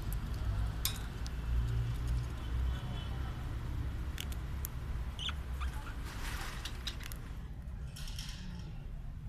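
A small Amazonian parakeet (pihuicho) cracking and nibbling a sunflower seed with its beak: scattered sharp clicks and short crunching patches, with a brief faint chirp about five seconds in, over a steady low rumble.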